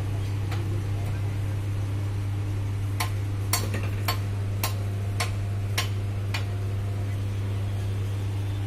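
Bajaj Pulsar turn-signal flasher relay clicking about twice a second for a few seconds, starting about three seconds in, as the indicator circuit with its rejoined cut wire flashes. A steady low hum runs underneath.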